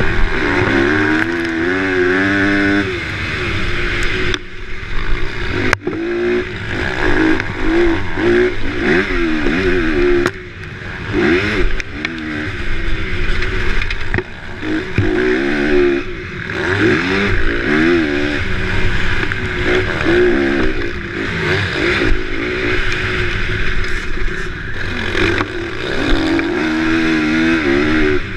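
Motocross bike engine heard from on board, revving up and falling back over and over as the rider accelerates, shifts and backs off. A sharp knock comes about six seconds in.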